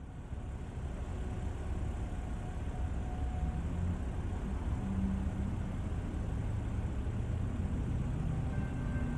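Steady low rumble of an idling car engine.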